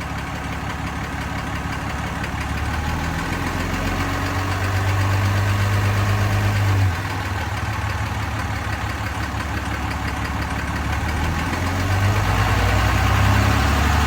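Ram 2500's 6.7-litre Cummins turbodiesel running at idle, with a ticking that the owner is asking about. It grows louder, drops suddenly about seven seconds in, and swells again near the end.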